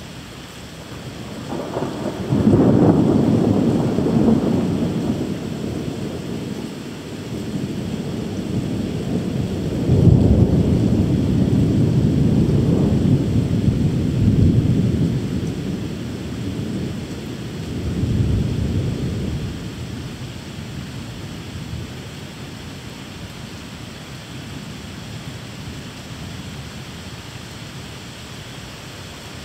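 Rolling thunder over steady rain. A long rumble builds about two seconds in, a louder one rolls for several seconds from about ten seconds in, and a shorter one comes just before twenty seconds, leaving the rain hiss on its own.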